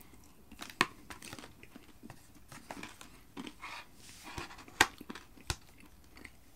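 Chewing a mouthful of loaded waffle fries, with a metal fork clicking and scraping in a plastic food tray. The sharpest clicks come about a second in and twice near five seconds.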